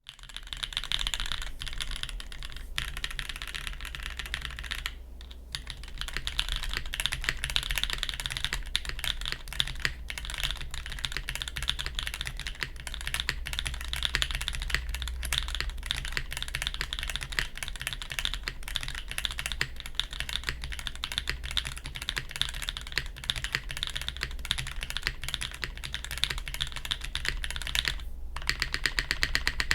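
Custom mechanical keyboard with factory-lubed Gateron Cream Soda linear switches, GMK keycaps and an aluminium plate, typed on quickly and continuously. The typing stops briefly about five seconds in and again near the end, then resumes as a fast, very even run of key strikes.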